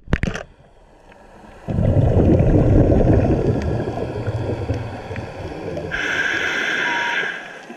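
A scuba diver's regulator heard underwater: a rush of exhaled bubbles lasting about four seconds, then the hiss of an inhaled breath near the end.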